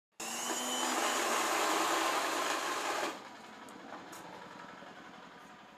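Electric sewing machine running at speed for about three seconds, then stopping suddenly, leaving a faint hiss.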